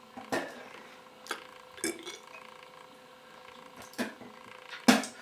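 A person gulping down a thick drink mix from a glass: about five short, separate sounds of swallowing and clinking, the loudest near the end.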